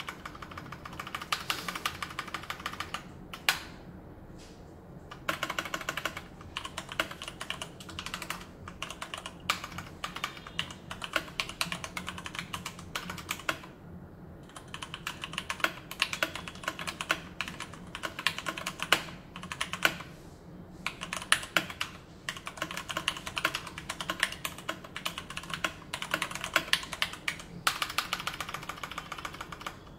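Typing on a Leopold FC660M 60% mechanical keyboard with Cherry MX Brown switches: fast runs of key clicks and clacks, broken by short pauses of about a second a few times.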